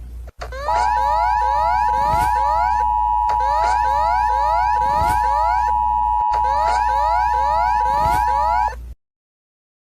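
Emergency alert alarm: a steady two-note tone held under quick rising siren sweeps, about three a second. It starts just under a second in and cuts off suddenly near the end.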